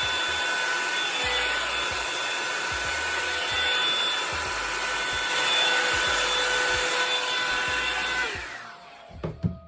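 Revlon hot-air hair dryer brush running steadily, a rushing airflow with a motor whine. About eight seconds in it is switched off and the whine drops as the motor winds down, followed by a few sharp knocks.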